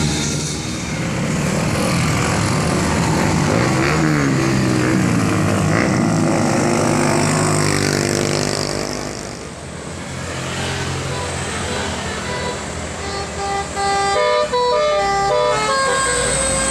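Road vehicle noise with an engine pitch that rises and falls. From about twelve seconds in, a telolet multi-tone bus horn plays a tune of quick stepped notes.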